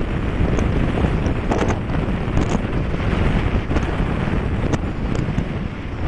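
Wind buffeting the microphone on a moving motorcycle, a steady low rush with the ride's road noise underneath.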